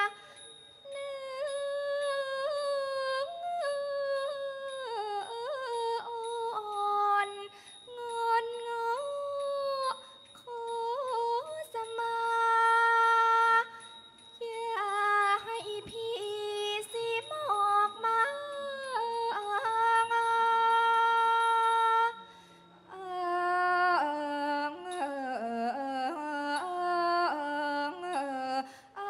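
A woman's voice singing a slow Thai classical vocal line, long held notes bent with gliding ornaments, in phrases broken by short pauses; the melody drops lower near the end.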